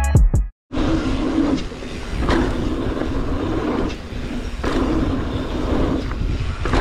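Mountain bike riding down a rough trail: a steady rumble of tyres and wind with sharp rattling knocks from bumps every second or so. It starts after music cuts off about half a second in.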